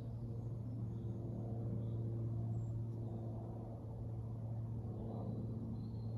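Wind rumbling on the microphone, with a steady low hum under it and a few faint high bird chirps.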